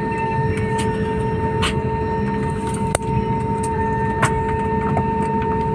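Steady cabin noise of a jet airliner on the ground: a low even roar with a steady whine of two tones from the engines and air systems, and a sharp click about three seconds in.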